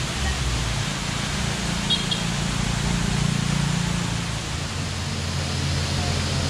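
Waterfall rushing as a steady, even hiss, with a vehicle engine humming low underneath.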